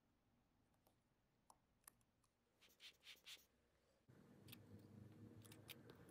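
Near silence: a few faint clicks and soft scrapes of steel tweezers handling small watch parts, then faint steady room noise from about four seconds in.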